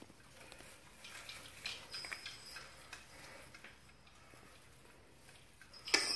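Faint rustling and crinkling as hands work a tinsel star topper onto a small artificial Christmas tree, with a louder rustle just before the end.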